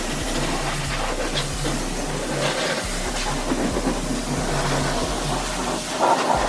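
Car-wash pressure-washer wand spraying water, a steady loud hiss, with music and its bassline underneath.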